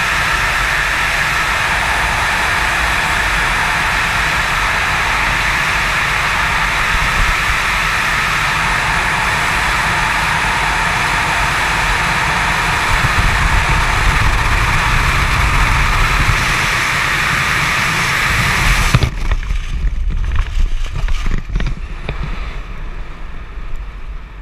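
Freefall wind rushing loudly and steadily over a helmet-mounted camera. About nineteen seconds in the rush cuts off abruptly, leaving uneven, fading gusts and flaps, as when the parachute opens and the fall slows.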